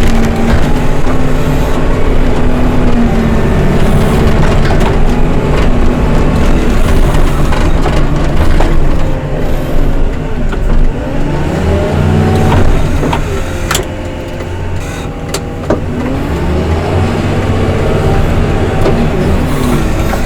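Diesel engine of snow-clearing heavy machinery running, its revs sinking and rising again about halfway through, with a couple of sharp clanks a few seconds later.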